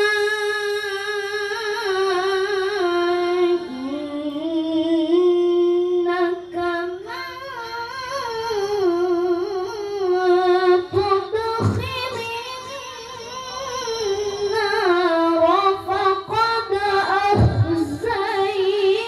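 A child qari reciting the Quran in the melodic tilawah style. The high voice holds long, ornamented notes in long phrases, with short breaks for breath between them.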